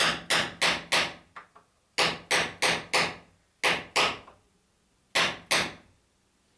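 Hammer driving small nails through a clinker dinghy's wooden plank into the transom. Sharp ringing blows about three a second come in bursts of four, then two, then two, with short pauses between them and a couple of lighter taps after the first burst.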